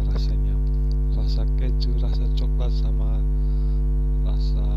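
Loud, steady electrical mains hum: a low buzz with a ladder of even overtones, with faint short wavering sounds over it.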